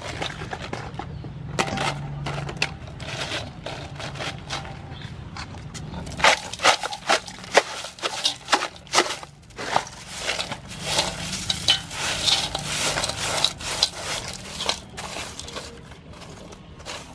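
Crushed ice being poured over cleaned blue crab pieces in a large aluminium basin: a dense clatter and crunch of ice on shell and metal, getting much louder about six seconds in. Near the end a hand presses and spreads the ice.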